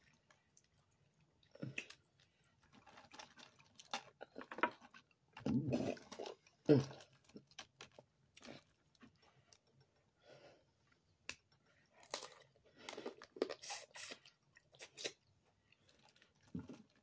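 Boiled crawfish shells being cracked and peeled by hand, with chewing in between: irregular crunches and small clicks.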